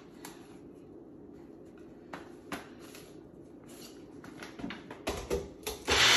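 Plastic cup of a personal blender being handled: a few light clicks and taps as the lid is screwed on, then a couple of knocks as the cup is set onto the motor base. The blender motor starts running right at the end.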